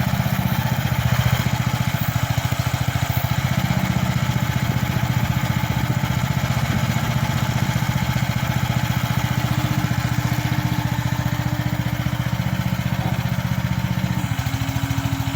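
Mini excavator's small engine running steadily with an even low pulse while the machine digs. A faint steady tone in the sound shifts slightly lower near the end.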